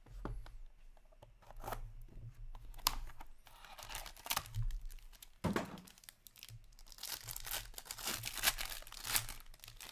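A hockey card pack's wrapper being torn open and crinkled by hand, with the rustle and clicks of cardboard box handling before it and a single knock about halfway through; the tearing and crinkling are densest over the last few seconds.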